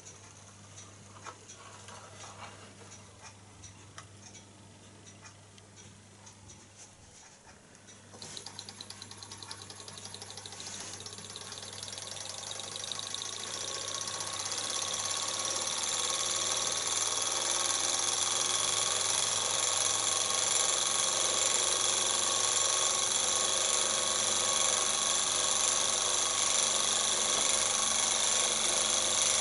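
Davies Charlton toy hot air engine starting about eight seconds in and picking up speed, its running growing louder over the next several seconds and then holding steady. A few faint clicks come before it starts.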